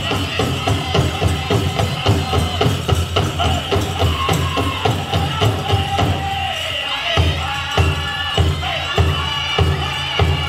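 Powwow drum group singing a chicken dance song in high voices over the steady beat of a big drum. In the second half the beat turns heavier and sparser, about two strokes a second.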